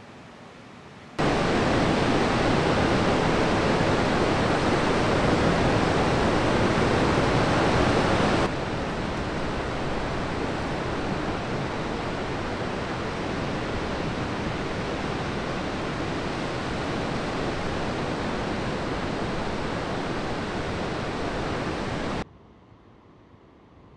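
Steady rushing noise of heavy breaking surf. It starts abruptly about a second in, drops in level about eight seconds in, and cuts off abruptly near the end.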